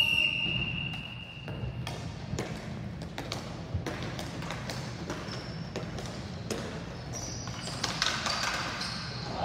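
A ball hockey ball being stickhandled up a sport-court rink floor: scattered light taps and clicks of stick on ball and floor, echoing in the hall. Near the start a steady high tone from the referee's whistle holds for about two seconds.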